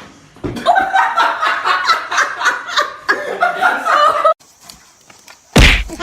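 People laughing for about four seconds in short repeated bursts, then a single loud thump near the end.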